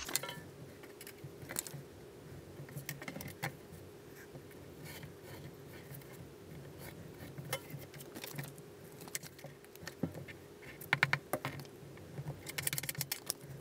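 Sheets of cardstock and paper being handled and pressed: scattered rustles, taps and scrapes, with quick runs of ticking scrapes about eleven seconds in and again near the end.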